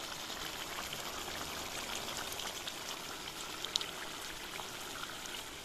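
Fish curry bubbling at a steady simmer in a nonstick pan, an even watery hiss, with a couple of faint ticks a little before four seconds in.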